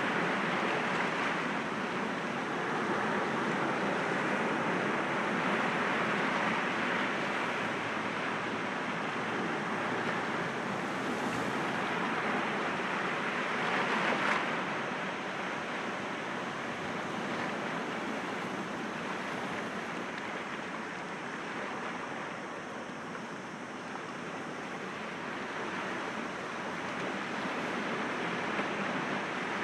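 Sea waves breaking against rocks: a continuous wash of surf that swells and eases, with one louder break about fourteen seconds in.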